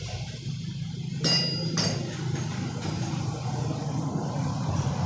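Two sharp metallic clinks, a second apart, as a hand tool or steel part strikes the planter's steel frame, each with a short bright ring, over a steady low hum.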